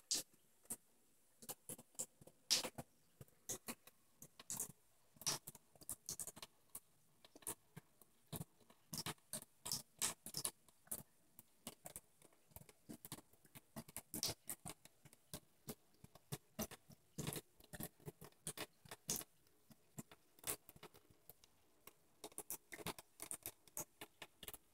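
Cat lapping water from a bathtub faucet spout: quick, irregular wet clicks of its tongue, a few a second, with short pauses between runs.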